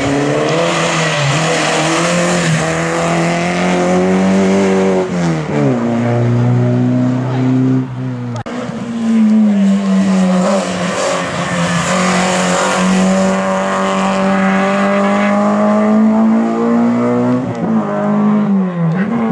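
Race car engine running hard at high revs, its pitch dropping sharply about five and eight seconds in, then climbing and holding again, with quick dips near the end.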